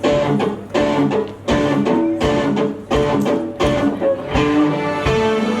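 A string ensemble playing pizzicato, plucking quick runs of notes in short phrases that break off and start again.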